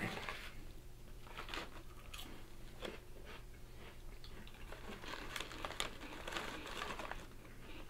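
Britannia Little Hearts, crisp sugar-sprinkled puff-pastry biscuits, being bitten and chewed. The crunches come irregularly, in crisp clusters.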